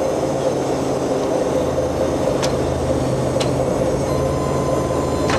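Purse seiner's diesel engines and hydraulic net-hauling crane running with a steady drone, with three sharp clicks in the second half.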